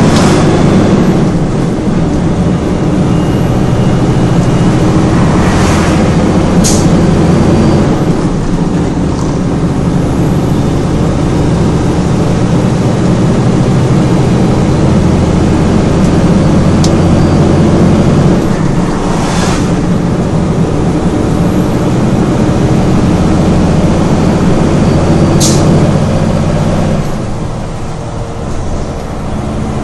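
600 hp Cummins diesel in a Kenworth K200 prime mover, heard from inside the cab, pulling steadily through the gears of an 18-speed Road Ranger manual gearbox, with the engine note stepping at each shift. A brief sharp high sound comes twice, about 7 s and 25 s in, and the engine eases off near the end.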